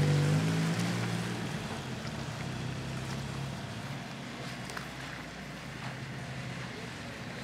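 Car engine humming as the car slows, its note fading away within the first second or two, leaving a steady hiss of road and wind noise with a few faint clicks.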